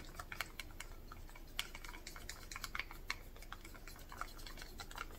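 Wooden craft stick stirring acrylic pouring paint in a small plastic cup: quick, irregular light clicks and scrapes as the stick knocks against the cup.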